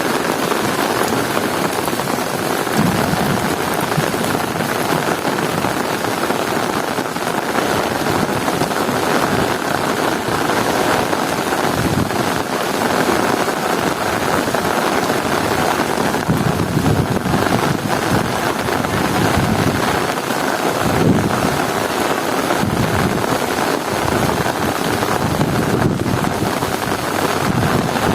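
Heavy rain falling in a steady, loud hiss, with a low rumble swelling up and dying away several times.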